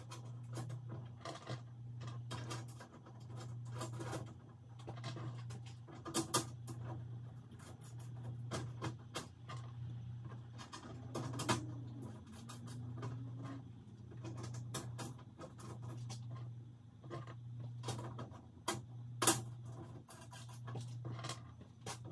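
Small bolts and hardware clicking and tapping as they are handled and fitted by hand into a plastic mesh grille insert, in irregular sharp ticks. A low hum that swells and fades every second or two runs underneath.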